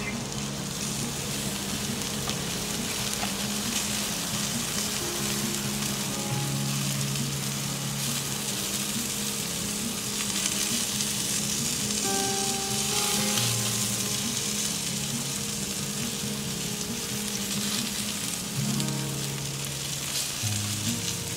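Bacon-wrapped quail sizzling on the grate of a kamado grill over lump charcoal, a steady crackling hiss of cooking fat.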